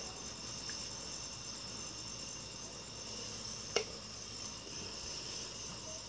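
A steady, high-pitched, finely pulsing trill of insects, with a single sharp click about four seconds in.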